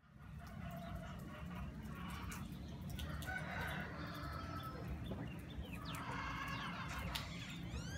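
Roosters crowing a few times, with other birds chirping quickly near the end, over a steady low rumble.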